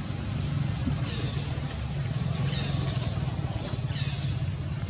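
Steady low rumble of motor vehicle engines, with short high chirps repeating about every half second to a second.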